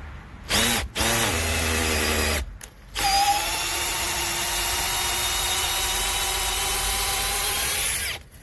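Makita XPH07 18V brushless cordless hammer drill in hammer-drill mode driving a 5/8-inch bit: two short trigger pulls, then about five seconds of continuous drilling under load with a steady motor whine, stopping near the end.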